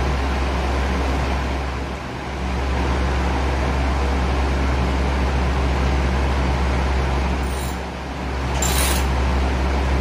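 A steady mechanical hum and hiss, dipping briefly twice, with a short burst of clicking about eight and a half seconds in.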